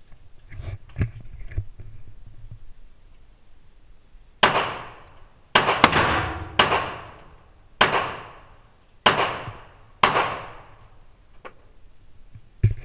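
Semi-automatic AR-15 rifle fired in single shots at an indoor range, about seven shots spaced roughly a second apart, each with a long echoing tail from the range's hard walls.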